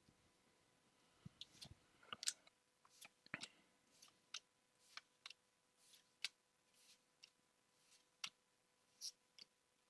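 Pokémon trading cards being handled and flipped one at a time from a freshly opened booster pack: a string of soft, short card clicks and snaps, about one every half second to second.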